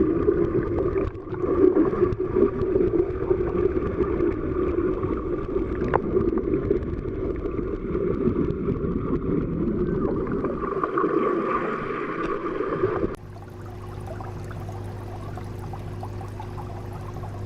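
Muffled underwater water sound, a dense rushing and gurgling. About thirteen seconds in it switches abruptly to a quieter, steadier underwater ambience with a low hum.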